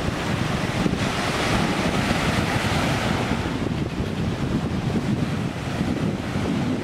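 Sea waves breaking and washing up the shore in an even rush of surf, swelling louder a couple of seconds in, with wind buffeting the microphone as a low rumble.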